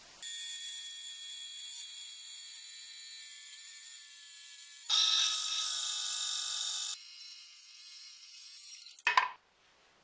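Bandsaw running and cutting a thin slab from a block of padauk (Pterocarpus) hardwood: a steady high-pitched whine that grows fuller for about two seconds in the middle, then cuts off shortly before the end.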